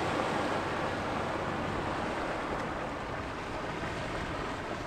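Steady rush of wind and choppy water, with a Mastercraft ProStar 190 ski boat running at a distance across the river.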